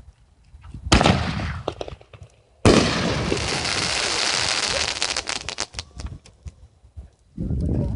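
Consumer fireworks going off: a sharp blast about a second in, then a loud hissing spray that lasts about three seconds and breaks up into a run of crackles.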